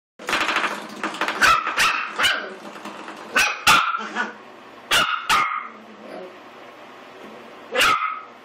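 Eight-week-old Pomeranian/Miniature Australian Shepherd puppy barking at a spring door stop: short, sharp, high barks in twos and threes, with quieter growling between them.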